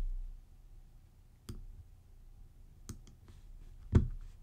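Three sharp clicks or knocks spaced over a few seconds, the loudest near the end, over a faint steady hum.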